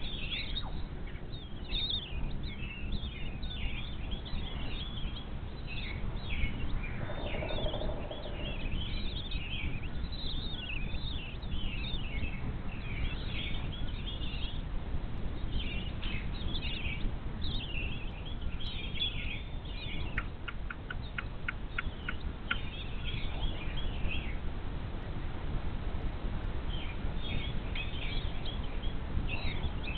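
Birds chirping in quick, high, overlapping calls over a low steady rumble of wind. The calls thin out briefly about four-fifths of the way through, and a quick run of about eight ticks comes about two-thirds of the way in.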